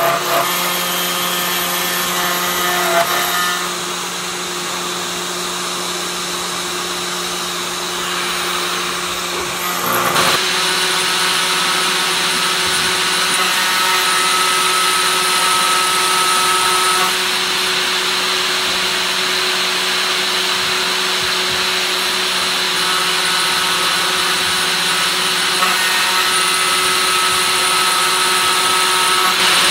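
CNC 3018 router's 500 W spindle running as a small end mill cuts into aluminium: a steady machining whine. It gets louder and brighter about ten seconds in, and a higher tone comes and goes several times.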